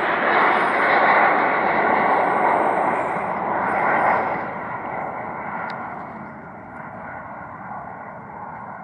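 Dornier 328JET's twin Pratt & Whitney PW306B turbofans at takeoff power during the climb-out. The steady jet roar is loud for the first few seconds and then fades away steadily as the aircraft climbs off.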